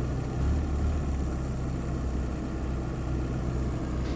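Vallee 'Big Red' portable sawmill's engine running steadily.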